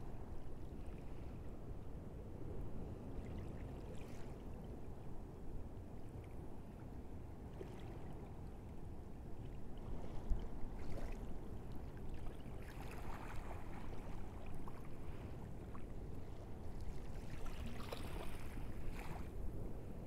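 Small waves lapping and washing in over wet sand at the shoreline, coming as several soft splashing swells over a steady low rumble.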